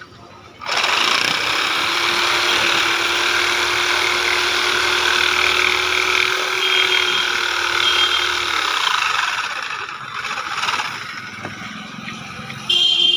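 Electric jigsaw switched on about a second in, its blade running steadily as it cuts wood. The sound eases off about nine seconds in and comes back loud near the end.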